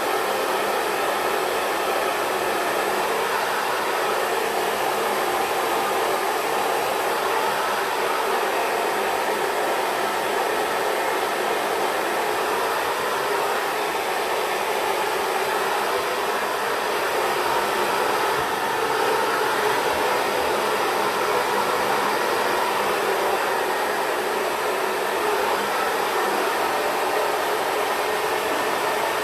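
Xtava Pro hair dryer running steadily with a diffuser attachment, blowing on curly hair. It keeps one setting, with no pauses or changes in speed.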